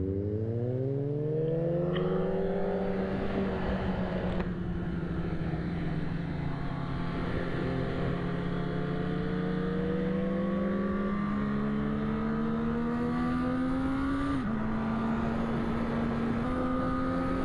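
Honda CB1000R's inline-four engine accelerating under load with steady wind rush. Its pitch climbs over the first few seconds, then holds. It drops twice in the second half as the rider shifts up.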